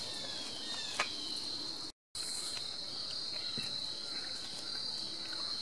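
Crickets singing in a steady, unbroken high trill, with one sharp click about a second in and a brief cut-out of all sound about two seconds in.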